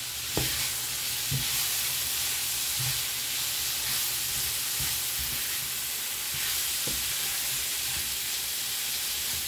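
Sliced smoked turkey sausage sizzling in a skillet, a steady frying hiss, as a spatula stirs it with a few light knocks against the pan. The sizzling is the liquid in the sausage cooking out.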